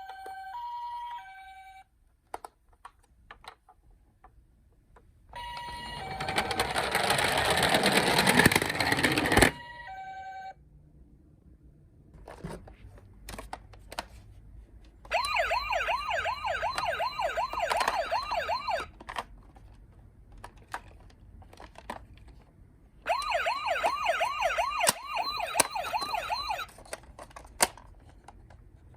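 Toy ambulance and police minicars' electronic sirens. A two-tone hi-lo siren steps back and forth near the start and again around ten seconds, with a loud rushing noise burst for about four seconds between. Later a fast-warbling wail sounds twice, each for about four seconds, with small handling clicks in the gaps.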